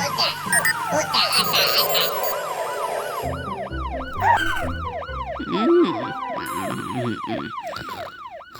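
Cartoon fire-truck siren wailing in quick rising-and-falling sweeps, about two a second, over lively cartoon background music.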